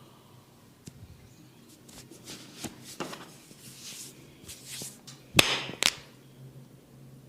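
Massage: hands rubbing and scratching over skin and hair, then two loud sharp smacks about half a second apart, a little past halfway.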